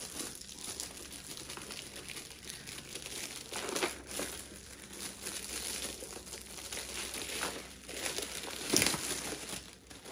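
Plastic packaging crinkling and rustling as it is handled and unwrapped, with a few louder crackles about four seconds in and near the end.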